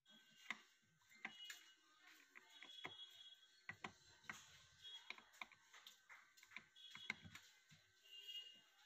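Faint, irregular small clicks and taps of a screwdriver and fingers handling a home theater amplifier circuit board.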